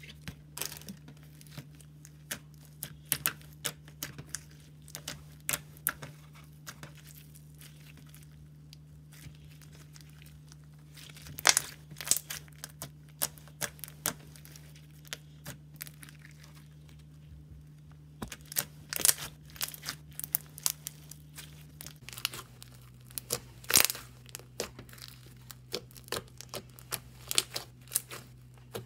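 Irregular crackling and crinkling clicks from something being handled, coming in clusters, over a faint steady hum that drops to a lower pitch about two-thirds of the way through.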